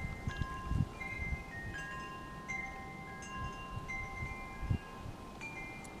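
Wind chimes ringing irregularly: several different notes struck every half second or so, each ringing on for about a second, over soft low rustling and thumps.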